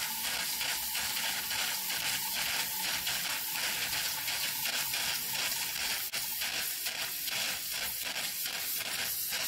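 Alcohol-fired Whizzer toy steam turbine running: steam hisses steadily from the small jet tube on the boiler cap onto the turbine wheel, with a fine, irregular sputtering pulse.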